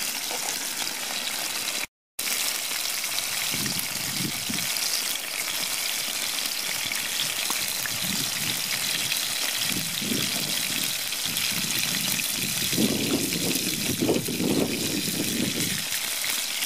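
Steak frying in oil in a non-stick pan over a small wood fire: a steady sizzling hiss, broken by a brief dropout about two seconds in, with occasional low rumbles that are strongest near the end.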